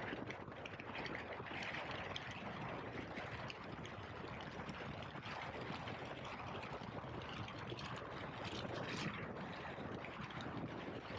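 Motorcycle riding at speed: steady wind rushing over the microphone, with engine and road noise underneath.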